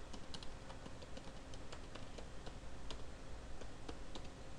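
Typing on a computer keyboard: quiet, irregular key clicks, several a second, over a faint steady hum.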